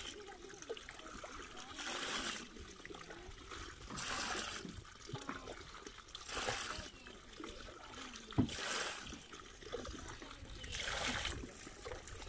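Water poured from a plastic mug onto mud, splashing about every two seconds, five times over. There is one sharp knock just over eight seconds in.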